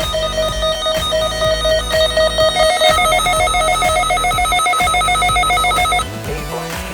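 Rapid electronic beeping: a pulsed tone, ringer-like, repeating several times a second. A second, slightly higher pulsed tone joins about two and a half seconds in, and both cut off suddenly about six seconds in.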